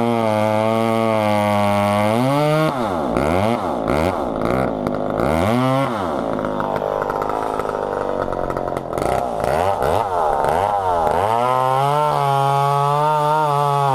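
Old McCulloch PM700 two-stroke chainsaw running. It holds a steady note, is revved up and down several times a few seconds in, then runs hard and rough for several seconds before settling back to a steady note near the end.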